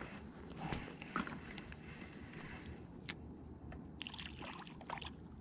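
An insect chirping in a thin, high tone, about two chirps a second, with a few sharp irregular clicks and knocks of handling over it.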